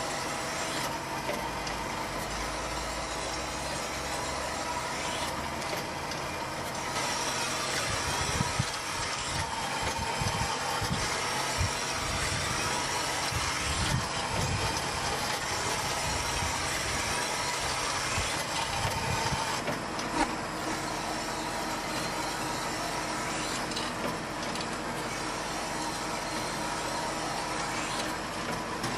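An engine and machinery running steadily, with an uneven low rumble in the middle stretch.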